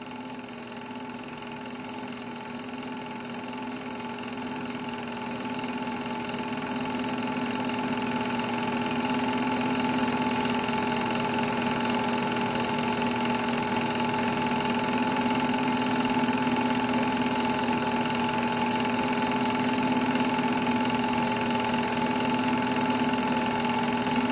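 Sears Tower home-movie projector running with film going through it: a steady hum with a fast, even chatter, growing louder over the first eight seconds or so, then holding steady.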